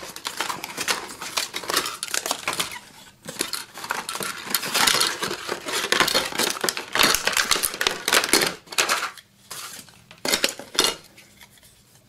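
Packaging being handled: a cardboard box opened and plastic bags and a plastic tray rustling, crinkling and clicking in quick irregular bursts, quietening near the end.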